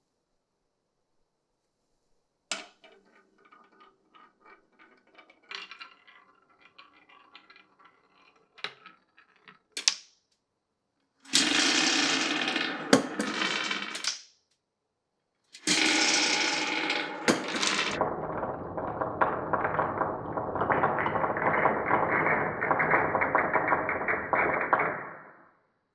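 Glass marbles rolling and clattering along a wooden marble run, with sharp clicks as they drop onto and strike the track pieces. After a couple of seconds of near silence, faint rolling and ticking starts, then much louder runs of rattling rolling come about eleven seconds in and again from about sixteen seconds in until near the end.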